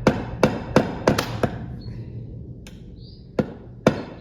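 Light hammer taps on a 20 mm screw head, tapping the screw into the wood of a bird box so the thread can start. Five quick taps in the first second and a half, a pause, then two more near the end.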